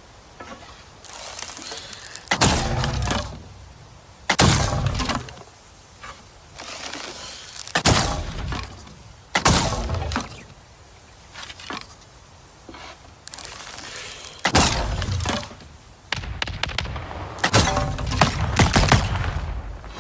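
Longbow sound effect: a series of about seven shots, each a sharp snap of the released bowstring and arrow that dies away within a second, with quieter noisy stretches between them.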